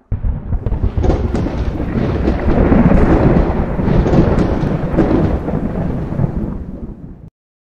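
Thunder sound effect: a continuous heavy rumble with sharp cracks scattered through it, cutting off suddenly about seven seconds in.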